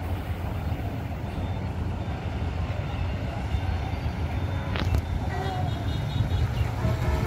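Large coach bus's diesel engine running with a steady low rumble as the bus moves slowly at close range.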